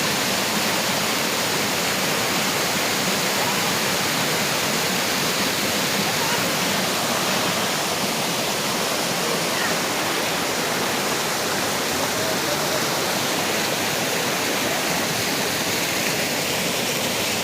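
Waterfall: water falling and splashing over rocks in a steady, unbroken rush.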